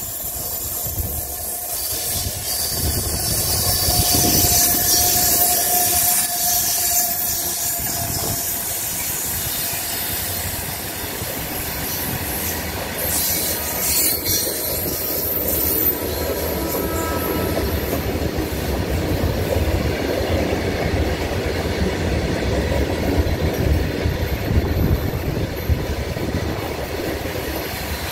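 Goods train hauled by a WAG-12 electric locomotive passing through a curve: wagon wheels clattering over the rail joints with a steady rumble, and high-pitched wheel squeal from the curve, strongest in the first half.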